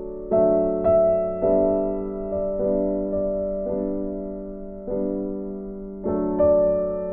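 Slow, gentle piano music: single notes and chords struck about once a second, each fading away before the next.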